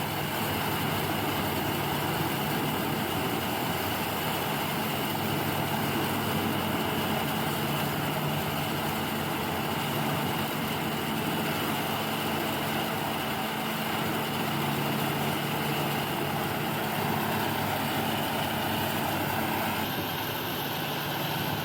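Eschelbach Biber 92 RBM wood chipper running steadily, a heavy engine's even drone with no distinct knocks or impacts.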